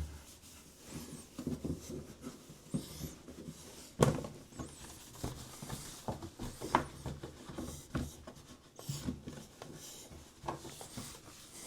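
Cloth wiping a washing machine's door and door jamb: soft, irregular rubbing and handling noises, with a sharp knock about four seconds in.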